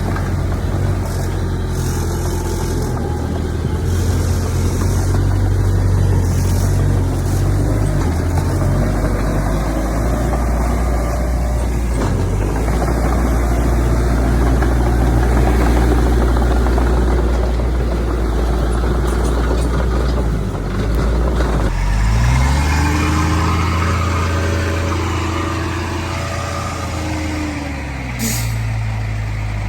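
Heavy diesel engines of earth-moving machinery running steadily. About two-thirds of the way through, an engine note rises and then falls again over several seconds, and there is a brief hiss near the end.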